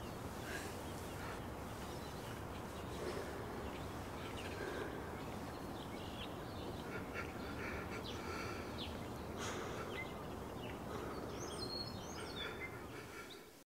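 Quiet room ambience: a steady low hiss with a few faint, scattered small sounds, cutting off abruptly near the end.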